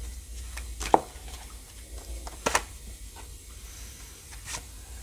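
Tarot cards being drawn and laid out on a table: a few short soft taps and flicks, spaced a second or two apart, over a low steady hum.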